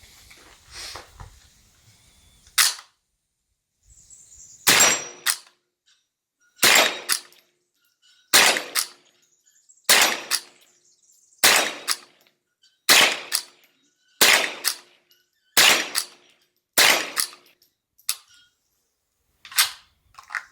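Savage A22R .22 LR rimfire rifle firing about eleven shots in slow succession at steel targets, one every one and a half to two seconds, each crack followed about half a second later by a fainter second report. The rifle cycles every round without a hitch.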